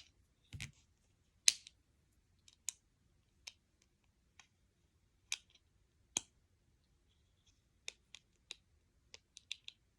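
Small plastic Lego pieces clicking as they are picked up and handled: sparse sharp clicks at irregular intervals, a quick cluster of them near the end.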